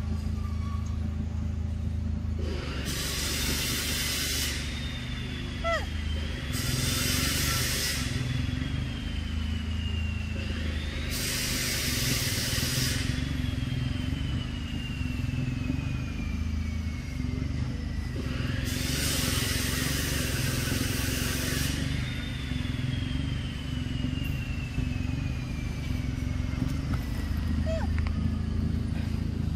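A steady low engine-like rumble, as of a motor vehicle running, with four loud hissing bursts of noise, each lasting a second or two.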